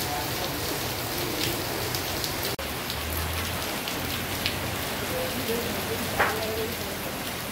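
Heavy rain pouring steadily on paving and foliage, an even hiss with scattered louder drips and splashes. The sound breaks off for an instant about two and a half seconds in.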